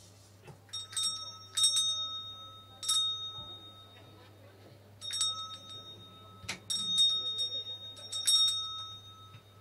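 Small metal hand bell rung in quick shakes, in two bursts of several strikes with a pause between them; each strike leaves a high, clear ringing tone.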